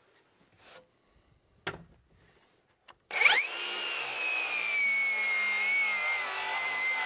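A few faint handling clicks, then about three seconds in a Metabo 36-volt cordless rear-handle circular saw starts up and makes a 45-degree bevel cut through a board. Its steady whine sinks slowly in pitch as the blade works through the wood.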